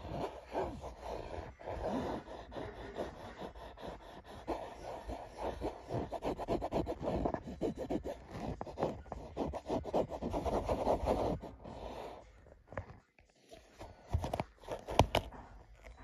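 A cat rubbing and scratching against a wooden bed-frame rail and carpet close to the microphone: a rough, continuous scraping that swells and fades, dying away about twelve seconds in, with a few sharp knocks near the end.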